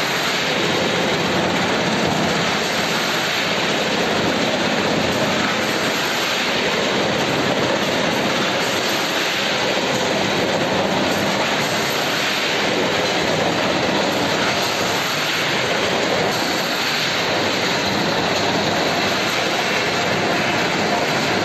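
Snack production line running: a loud, steady, even machinery noise from stainless-steel conveyors carrying puffed snack pieces towards the packaging machine.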